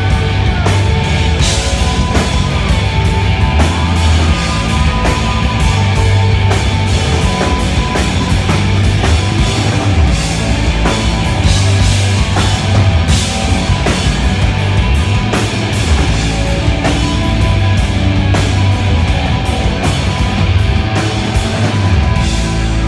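Loud live rock music from a band: electric guitars, bass guitar and a drum kit played hard.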